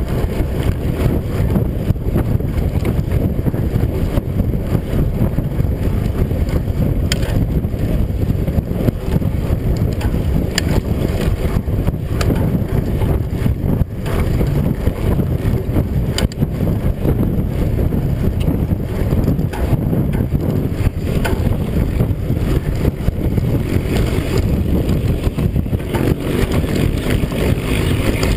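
Wind buffeting the microphone of a mountain bike's onboard camera while the bike rides fast over a rough dirt forest track, with steady tyre rumble and now and then a short clatter from a bump.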